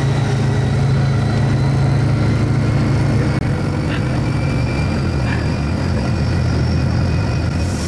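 An engine running steadily at a constant speed, a continuous low hum.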